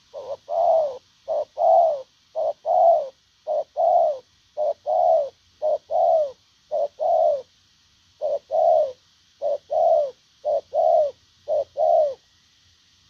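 Spotted dove cooing: about eleven two-note coos in steady succession, each a short note followed by a longer one that falls slightly in pitch. They stop about twelve seconds in.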